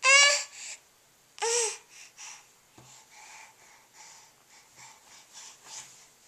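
A baby making silly vocal noises: two loud, high-pitched squeals in the first two seconds, then softer, breathy babbling.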